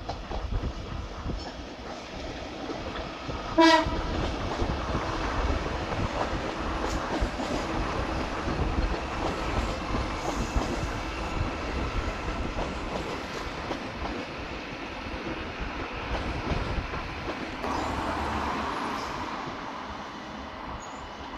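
TransPennine Express Class 397 electric train passing at speed. One short horn blast comes about three and a half seconds in, and the steady noise of its wheels on the track carries on as it goes by.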